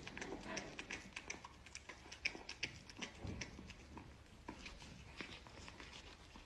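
Cat gnawing kernels off a cob of boiled corn: an irregular run of faint little chewing clicks and crunches.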